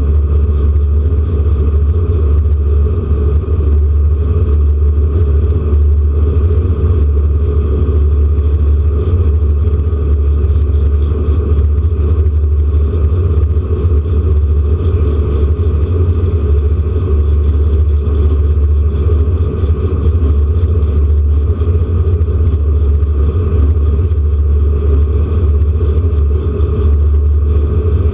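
Air-cooled flat-six engine of a 1979 Porsche 911 RSR race car running at a steady, unchanging pitch, with a strong low rumble, heard from inside the car.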